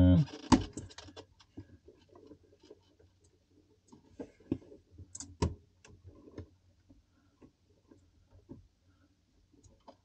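Small clicks and handling noises as a new defrost thermistor is clipped onto the freezer's evaporator tubing and its wire is worked into place. There is a sharp click about half a second in, then a scattering of lighter clicks, mostly between four and six and a half seconds in.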